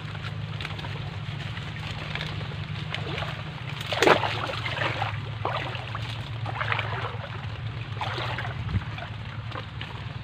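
Water sloshing and splashing in a river, in irregular bursts with the loudest splash about four seconds in, over a steady low hum.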